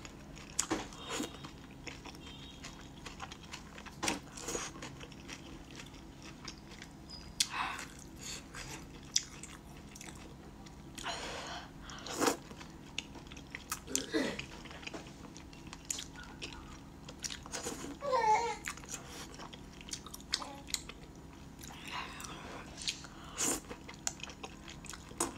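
A person eating wide noodles, picked up very close: wet chewing and smacking with scattered sharp mouth clicks, and a few short slurps as noodles are sucked in.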